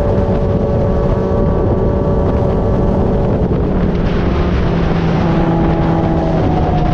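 Kawasaki ZX-636R inline-four engine, swapped into a Honda TRX450R ATV, running loudly, with its engine note shifting about halfway through.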